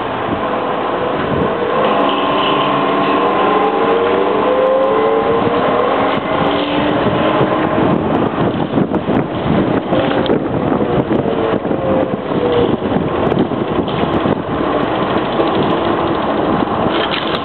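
A 1987 Seattle M.A.N. trolleybus on the move, heard from its roof beside the trolley poles: a steady rush of wind and running noise. Whining tones rise in pitch from about two seconds in and fade out several seconds later, and scattered clicks come later on.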